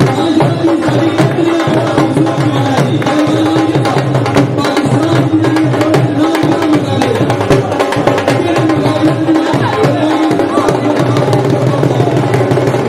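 Dhol drum beaten with sticks in a fast, steady dance rhythm, with a wavering pitched tone running above the drumming.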